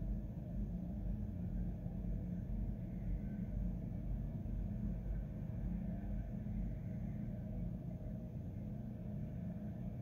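Steady low rumble with no distinct events.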